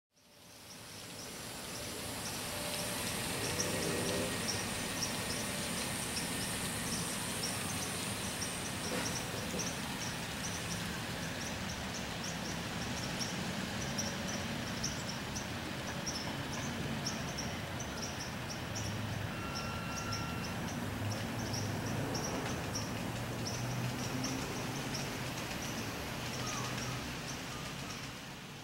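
Steady noisy ambience with high chirps repeating evenly several times a second over a low rumble, fading in at the start and fading out near the end.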